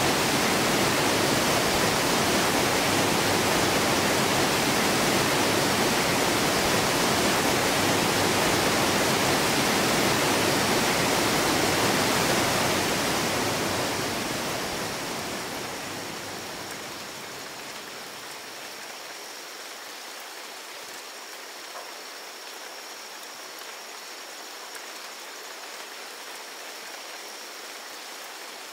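Waterfall pouring down a rock face: a loud, steady rush of falling water. About halfway through it fades down to a much quieter rain hiss with a few faint drops and a faint steady high-pitched tone.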